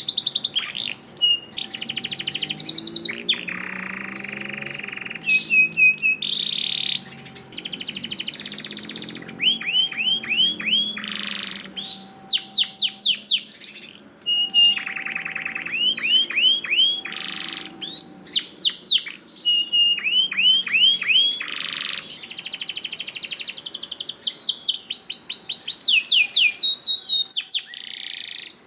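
Male domestic canary singing a long, unbroken song of fast trills, buzzy rolls and runs of quick falling sweeps. This is the loud, continuous 'gacor' song used as a master recording for training other canaries.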